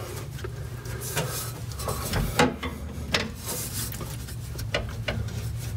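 Irregular clicks, knocks and scraping of hand tools and metal parts being worked on a car's front steering linkage while bolts are fitted, with the sharpest knock a little before halfway through. A steady low hum runs underneath.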